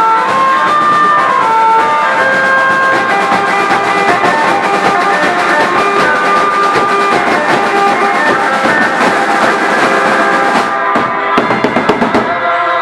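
Marching band playing in the street: bass drums and side drums keeping a steady beat under a melody of held notes on wind instruments. A few louder drum hits come near the end.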